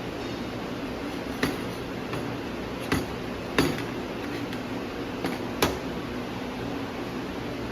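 Steady hum of a laser welding machine's cooling fans, with five sharp clinks spread over a few seconds, the loudest two about three and a half and five and a half seconds in.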